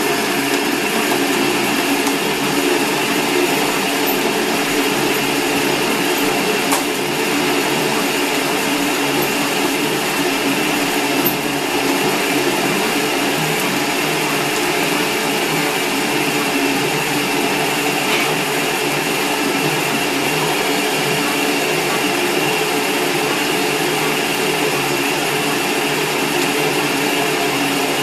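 Electric stand mixer running steadily, mixing biscuit dough in its stainless steel bowl.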